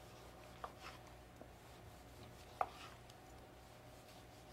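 Chef's knife cutting a ripe tomato on a wooden cutting board: a few faint, sparse taps of the blade on the board, the loudest about two and a half seconds in.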